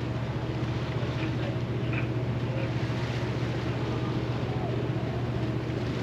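Seattle–Bainbridge Island ferry under way: a steady low engine hum with an even rushing noise over it.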